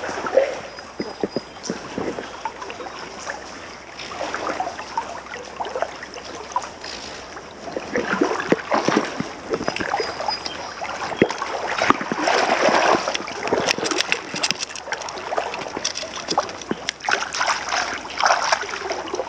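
A hooked trout splashing at the surface as it is played in and drawn into a landing net, over steadily flowing river water. The splashing gets busier about halfway through.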